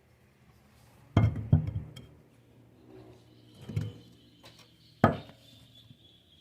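Metal parts and tools clinking and knocking while the Beetle's wheel assembly is being opened up: a few sharp strikes, the sharpest about five seconds in, with a faint high ring lingering after.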